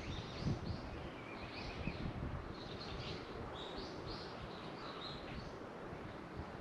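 Small birds chirping over and over, short high chirps coming several times a second with a brief warbling trill, over a low uneven rumble.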